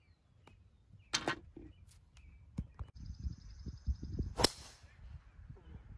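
Golf driver striking a teed ball: one sharp crack about four and a half seconds in, the loudest sound. A softer, shorter knock comes about a second in, with a low wind rumble on the microphone later on.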